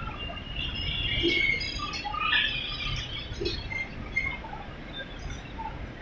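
Vintage wooden passenger carriages rolling slowly past with a low rumble, over which come many short, high squeaks and squeals from the wheels on the rails, thickest in the first half.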